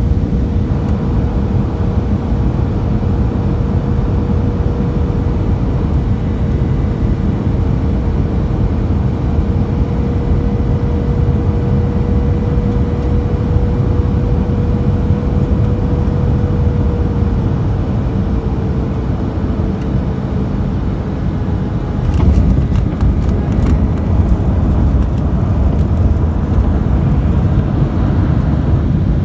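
Cabin noise inside a Boeing 737-800 on final approach: a steady rumble of its CFM56-7B engines and airflow with a thin steady hum that sags in pitch and fades about eighteen seconds in. About 22 seconds in, the mainwheels touch down: the rumble suddenly gets louder, with clattering and rattles as the jet rolls out on the runway with its ground spoilers up.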